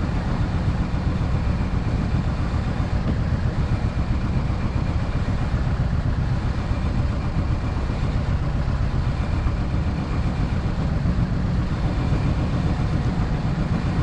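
Fishing boat's engine running steadily, a low, even rumble.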